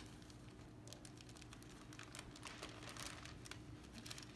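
Faint crinkling and rustling of a large paper poster sheet being handled and turned over on an easel, heard as many small irregular crackles.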